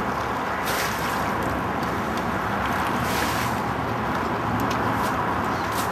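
Water sloshing and splashing as buckets are dipped into a flooded excavation trench and tipped out, with two brief splashes about a second in and about three seconds in, over a steady rushing background noise.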